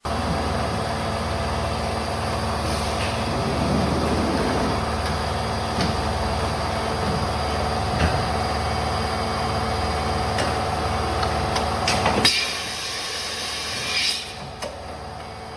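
Metalworking shop machinery running steadily, with scattered clicks and knocks. About twelve seconds in the running sound drops off sharply, and a short hissing noise follows.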